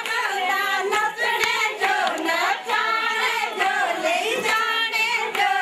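Women singing a Kangri Jhamakda wedding folk song together, with handclaps along with the singing.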